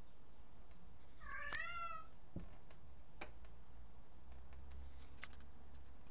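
A domestic cat meowing once, a short call about a second in, followed by a few faint clicks.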